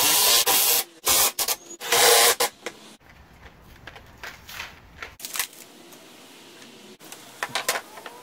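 Cordless drill running in three short bursts, driving screws into the clamped pine boards, followed by quieter handling of the wood with a few light clicks and knocks.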